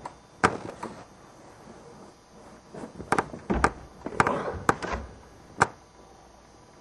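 A run of sharp, irregular knocks and clicks: two about half a second in, a cluster between about three and five seconds in with a brief scraping rustle among them, and a last one near the end.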